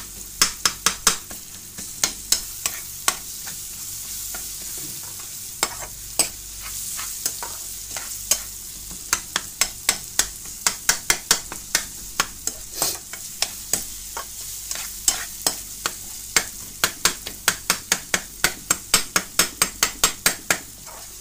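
A metal spoon stirring onion and tomato masala in a metal pan, scraping and knocking against the pan in quick runs of clicks with a couple of short pauses, over a steady sizzle of the masala frying on low heat.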